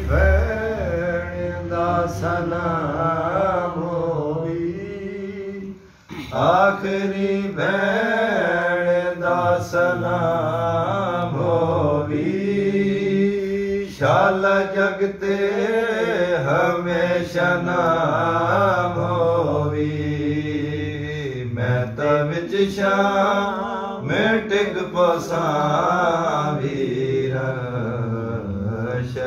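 A man singing a noha, a Shia lament for Imam Hussain, with no instruments, in long drawn-out phrases with held notes, stopping for breath about every eight seconds.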